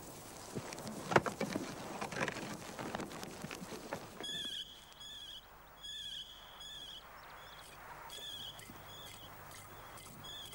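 Scattered knocks and scuffling steps of a pack reindeer and its handler walking over rough ground. From about four seconds in comes a high whistled call, repeated several times in short phrases.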